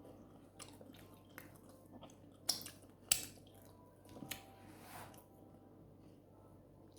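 A person eating fufu with palm nut soup: faint chewing, with scattered wet mouth clicks and smacks, the sharpest a little after three seconds in.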